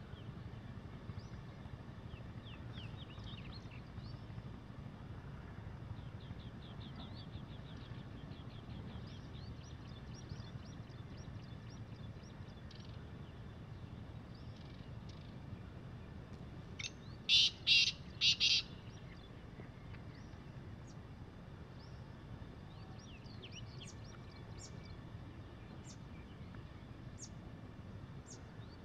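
Black francolin giving one loud call of four harsh notes in quick succession, about two-thirds of the way in. Faint chirps and trills of small birds sound through the rest.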